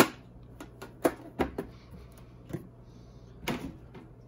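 Hockey card packs and their emptied tin being handled on a table: a handful of light, irregular knocks and clicks, with a short rustle about three and a half seconds in.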